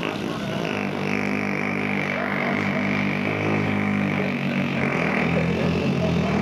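A man blowing a long, low, steady raspberry into a handheld microphone, a mouth-made imitation of breaking wind.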